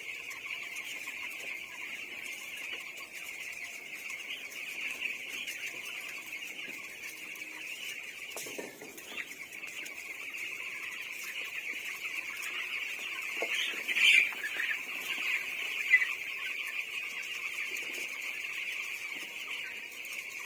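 A large flock of chickens in a poultry house calling all together in a steady, high-pitched chorus, with a couple of louder calls standing out in the second half.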